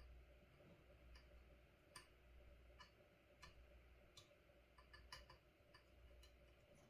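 Near silence broken by faint, irregular light clicks, about one every half second or so: metal tweezers picking up and handling tiny surface-mount components.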